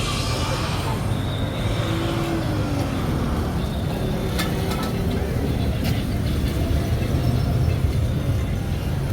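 Urban street ambience: a steady rumble of road traffic with vehicles moving close by, and a couple of sharp clicks near the middle.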